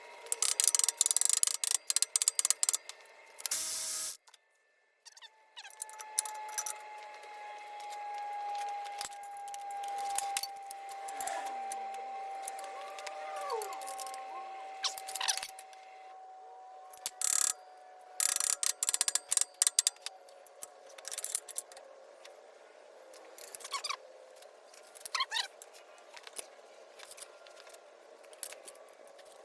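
Bursts of rapid metallic clattering and tapping from tools working a puller on a seized crankshaft pulley, in several clusters with pauses between. A faint steady tone slowly drops in pitch through the middle.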